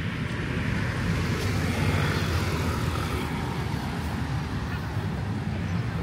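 Street traffic noise, with a vehicle passing that swells about two seconds in over a steady low rumble.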